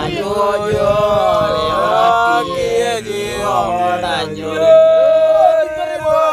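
Male voice chanting a song in the Otuho (Lotuko) language, the melody sliding up and down, with one long held note about five seconds in.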